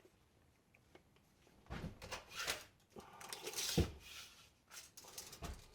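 Handling noises while a chainsaw pull cord is measured: a few scattered rustles and knocks, the loudest a low thump about four seconds in.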